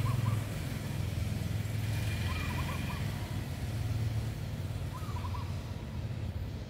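Steady low rumble of a motor vehicle engine or traffic. Over it, a bird repeats a short three- to four-note call about every two and a half seconds.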